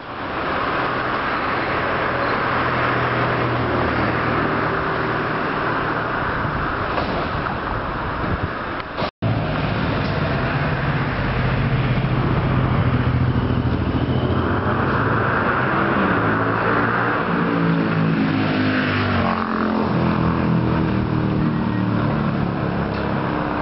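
Steady motor-vehicle engine and traffic noise. A vehicle passes about eighteen to twenty seconds in, its engine pitch falling as it goes by. The sound cuts out briefly about nine seconds in.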